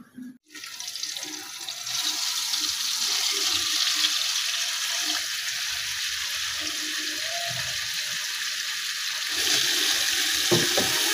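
Marinated chicken pieces sizzling in hot oil in a frying pan: a steady hiss that grows louder about two seconds in and again near the end. A few clatters of a metal spatula against the pan come near the end.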